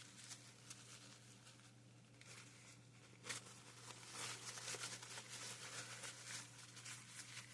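Faint, irregular rustling and light scratching from hands working on a small plastic model, cleaning up glue, over a steady low hum.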